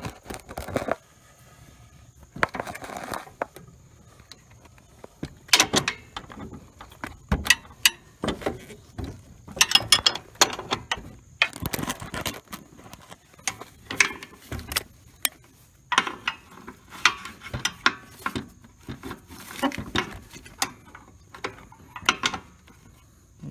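Hand socket ratchet clicking in short runs, with metal clinks and knocks, as the 13 mm bolts holding a riding mower deck's belt-guard bracket are worked.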